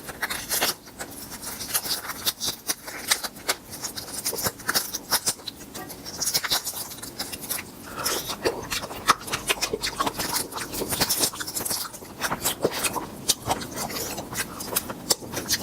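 Close-miked eating sounds: grilled tiger prawns being chewed and crunched, an irregular run of sharp crunchy clicks.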